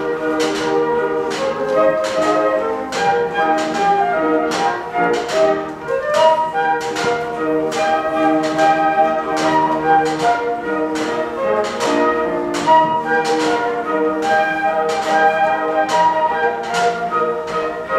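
Flute ensemble playing a tune in several parts at once. Sharp percussive strikes keep a steady beat about twice a second.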